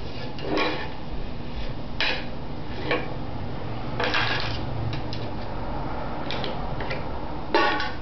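A baby knocking and rattling a can and its caps: irregular clanks and short rattles about every second, with the loudest burst near the end.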